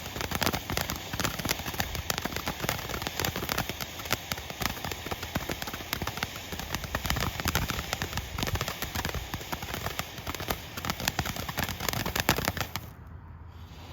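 Firework crackling: a dense, fast stream of sharp crackles and pops that cuts off suddenly near the end.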